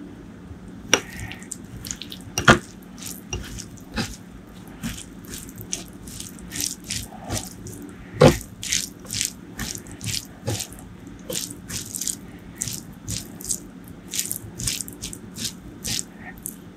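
Wet, sticky squelching and clicking of bare fingers mixing white rice with curry gravy, about two to three short clicks a second. A few louder knocks stand out, the loudest near the start and about halfway through.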